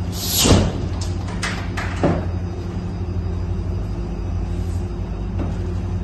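PHCbi VIP ultra-low-temperature lab freezer being unlatched and pulled open. A loud rush as the door seal breaks about half a second in, then a few sharp clicks from the handle and latch and a thump around two seconds in, over a steady low hum.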